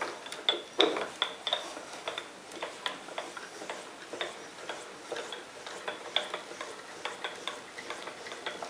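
Steel saddle table of a homemade lathe moved by hand along its rails and lead screw, giving a string of irregular light metallic clicks and ticks.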